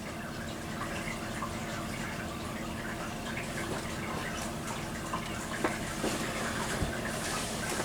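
Steady room background noise, a soft hiss with a faint hum and a few small clicks in the second half. The LED strobe makes no sound of its own: no capacitor whine or buzz.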